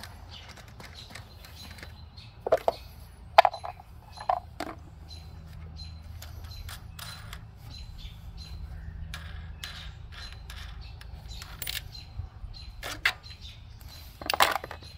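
Plastic air filter cover and filter element being pulled off a mini bike's small engine: a few sharp clicks and knocks, a cluster a few seconds in and another near the end, over a low steady hum.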